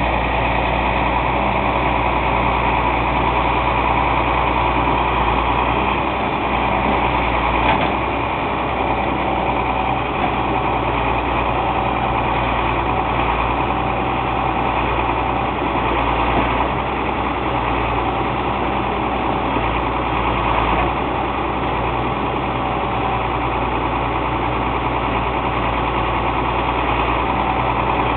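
A crane truck's engine running steadily at an even speed, with no change in pitch or level.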